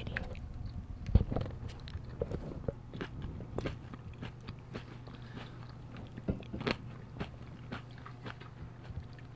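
Fresh blueberries being bitten and chewed right at the microphone, a run of irregular wet bites, the sharpest about a second in.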